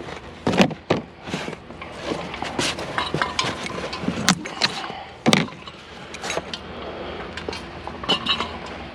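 Irregular clanks, clinks and knocks of discarded scrap items being handled and moved, with two louder bangs, one about half a second in and one about five seconds in.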